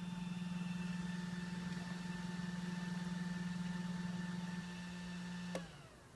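OPT7 H11 LED low-beam headlight bulbs making a steady, wavering ("oscillating") humming drone, with a thinner high whine over it. The owner hears this as an abnormal, annoying noise. Near the end there is a click, and the hum dies away at once, as when the headlights are switched off.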